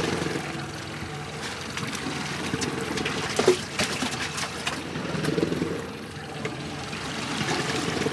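Boat motor running steadily at trolling speed, with water washing along the hull. A single sharp knock about three and a half seconds in.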